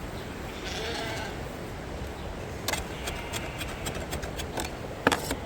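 Knocks, clicks and scraping from a lamb drinker being cleaned out by hand, with two sharper knocks about two and a half and five seconds in, over a steady low rumble.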